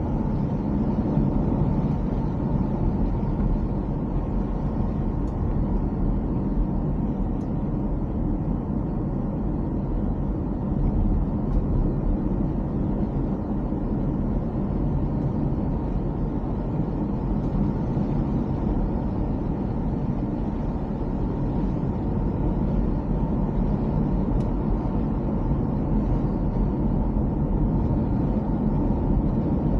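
BMW X4 M40i driving at a steady pace: an even low rumble of road and engine noise, with no revving or gear changes.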